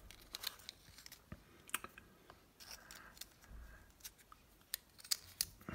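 Faint handling noise: light, scattered clicks and a little rustling as fingers turn over a small resin model turret.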